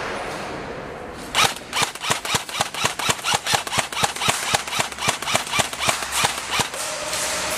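Airsoft rifle firing a rapid string of sharp single shots, about four to five a second, starting about a second and a half in and lasting some five seconds.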